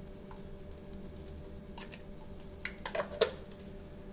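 Light clicks and taps of kitchen items being handled beside the stove, a few scattered and then a quick cluster in the second half, over a faint steady background hum.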